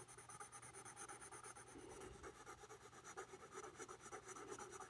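Faint, quick scratching of a graphite pencil shading on paper.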